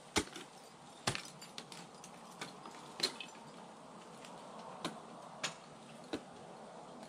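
Ice axe picks and crampon front-points striking the ice of a frozen waterfall: about seven sharp, separate knocks at irregular intervals of roughly a second.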